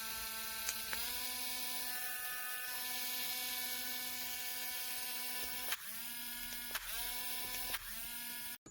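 Electric nail drill motor running steadily with a pitched whine. A click comes about a second in and three more near the end, each with the pitch dipping briefly and climbing back as the motor picks up speed again.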